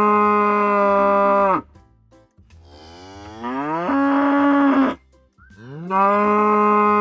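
Cow mooing three times. There is a long, steady moo that ends about a second and a half in, then a shorter call that rises in pitch in the middle, then another long, steady moo starting about six seconds in.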